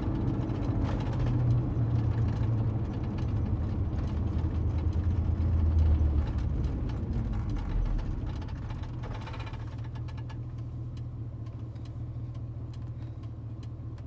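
Ford pickup truck's engine and road noise heard from inside the cab. The engine drone falls in pitch as the truck slows, then settles into a quieter low hum about eight seconds in. A light regular ticking, about two a second, runs underneath.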